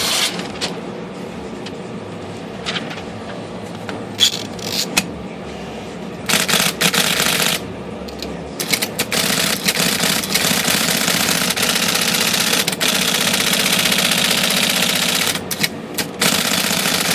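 IBM Selectric electric typewriter running with its motor humming steadily; a few separate clicks at first, then from about six seconds in a fast, continuous mechanical clatter as the typing mechanism prints characters in quick succession, testing freshly adjusted timing.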